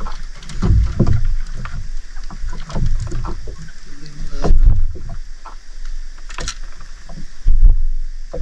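Sea water sloshing against a small fishing boat, with irregular low thumps and knocks; the loudest come about a second in, just past four seconds and near the end.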